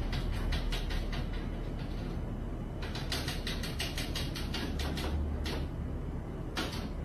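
A cat's paws batting and tugging at the plastic louver of a wall-mounted air conditioner: quick clicking taps, several a second, over a low steady hum. The taps pause briefly about halfway and stop near the end.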